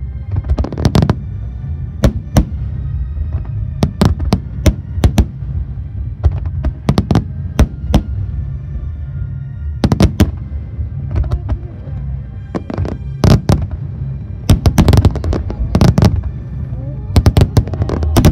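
A large fireworks barrage: many shells bursting as loud sharp bangs in irregular clusters, heaviest in the last few seconds, with deep rumbling. Music plays underneath throughout.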